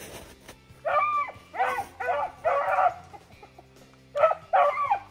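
Beagles baying while running a snowshoe hare: a quick run of four bays about a second in, a pause, then two more near the end.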